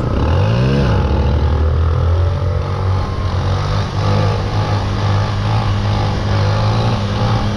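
Motorcycle engine rising in pitch as it revs up in the first second, then running at a steady pitch while riding along.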